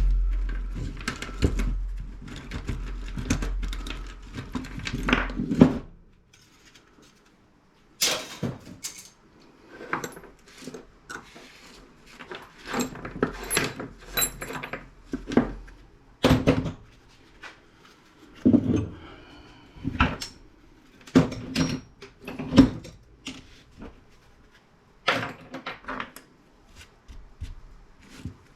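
Small pieces of scrap metal, copper and steel salvaged from an old radio, clinking and rattling as they are handled and gathered up. There is a low rumble under the clatter for about the first six seconds, a short lull, and then a string of separate clinks with short pauses between them.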